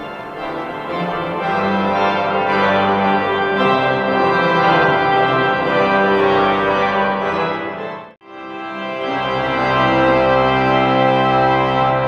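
Organ playing loud, sustained chords. It cuts out abruptly about eight seconds in, and a new chord starts straight after.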